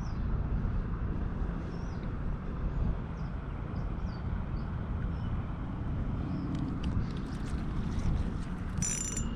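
Steady rushing noise of river water flowing around a kayak, with faint short bird chirps in the first half. A few clicks and a metallic clink near the end.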